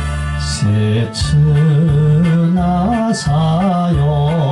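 A man singing an enka ballad into a microphone over a karaoke backing track, his held notes wavering.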